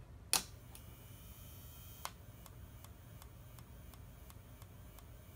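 Whelen HDA-DF-14 strobe power supply firing its flash tube: a sharp snap just after the start and another about two seconds in, with a faint high whine between them, then faint regular ticks about three times a second.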